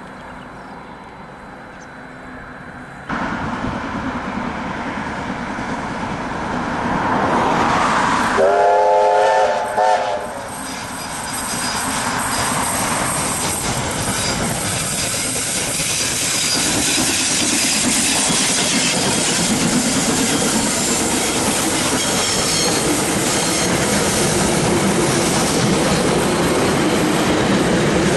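Ja class steam locomotive Ja 1271 running past with a passenger train. About eight seconds in it gives one whistle blast lasting a second and a half, and then the rumble of the train grows louder as the carriages roll by close.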